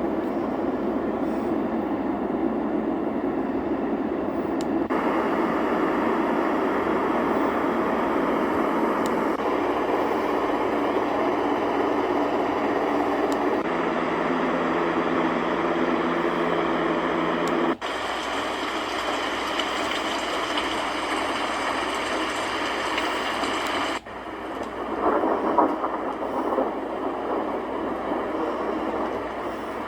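Sound machine playing its recorded ambient noise settings through its small speaker, one steady noise after another. It switches abruptly to a different sound about 5, 18 and 24 seconds in, and the last setting has a louder, uneven surge soon after it starts.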